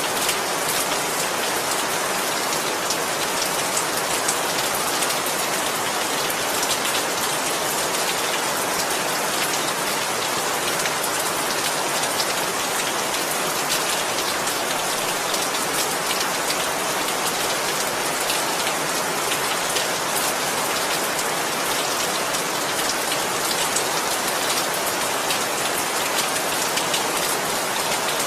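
Steady heavy rain falling on a surface, a dense even hiss with fine individual drop patter and no thunder.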